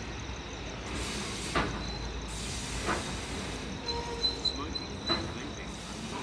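A train passing: a steady low rumble with a few sharp clicks.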